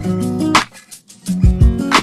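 Background music with a steady beat: plucked guitar over a drum rhythm.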